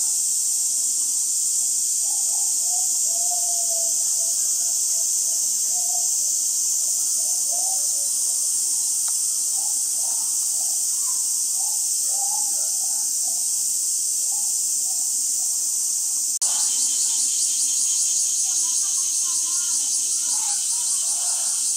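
A steady, high-pitched insect drone, with faint voices of people in the background. About sixteen seconds in it changes abruptly to a faster pulsing buzz.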